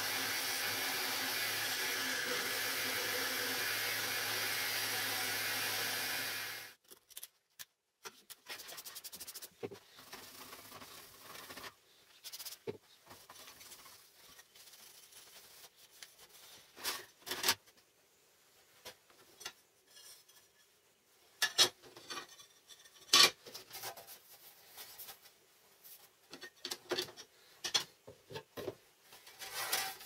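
Small table-mounted saw with a reciprocating blade running steadily as it cuts a square opening in aluminium plate, then cutting off sharply about six and a half seconds in. After that come quiet rubbing over the cut aluminium sheet by hand and scattered sharp clicks and knocks of metal plates being handled.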